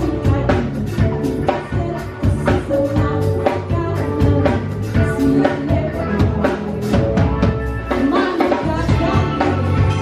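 Live band music with a steady drum beat under held instrumental notes and a singing voice, performed as Indonesian music.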